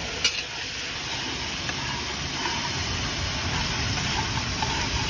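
Sliced onions sizzling as they fry in oil in a large metal kadhai, stirred with a long metal spatula, over a steady low rumble. The spatula knocks once against the pan about a quarter of a second in.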